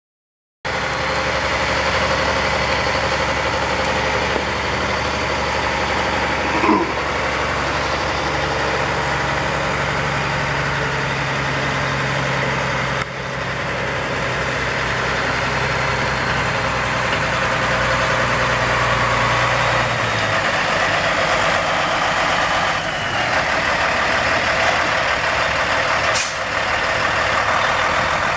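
Caterpillar C12 straight-six diesel engine of a 1997 Kenworth T600 dump truck idling steadily. Its low drone changes character about two-thirds of the way through.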